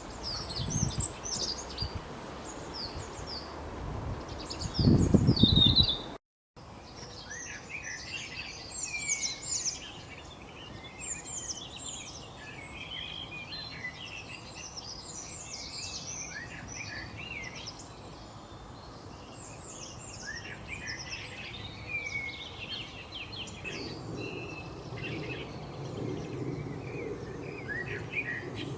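Many small birds chirping and twittering at once, a dense chorus of quick high notes and short trills. In the first six seconds two low rumbles come through, the second and louder one about five seconds in, and the sound cuts out briefly at about six seconds.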